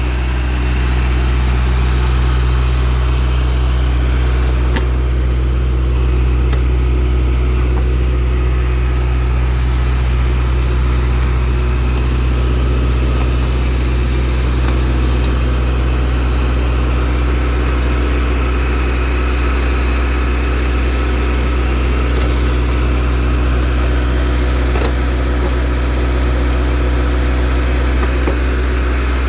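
The 40 kW Xinchai diesel engine of a compact tractor-loader-backhoe running steadily at an even speed, with a strong low hum.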